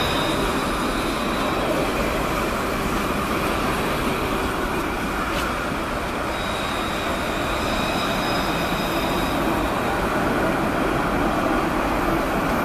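Alstom Citadis low-floor electric tram rolling past at close range on street rails: a steady rolling rumble, with a thin high whine that comes in near the start and again in the middle.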